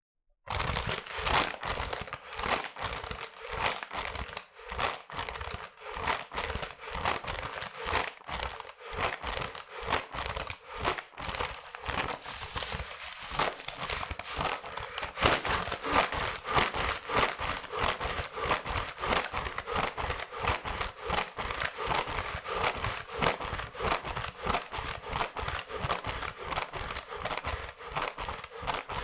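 A person hyperventilating into a paper bag: rapid, rhythmic panting breaths, each one crinkling the paper as the bag collapses and fills.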